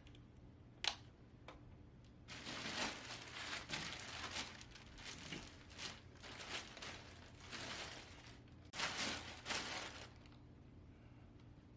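Packing material rustling and crinkling in repeated bursts as a gaming PC is unboxed, with one sharp click about a second in; the loudest burst comes near the end.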